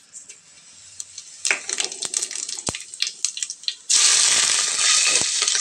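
Cumin seeds crackling and popping in hot oil in a pressure cooker. About four seconds in, a loud, steady sizzle starts suddenly as sliced onions go into the oil.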